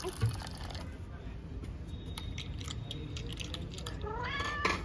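Light scraping and clicking of a razor shaving a toddler's head, with a short rising cry near the end.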